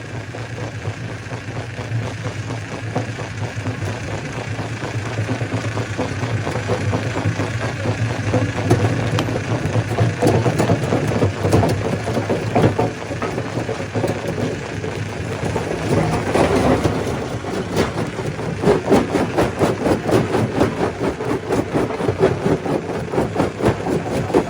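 Stone crusher running with a steady low drone, overlaid by dense rattling and knocking of rocks being broken, which grows busier and louder about eight seconds in.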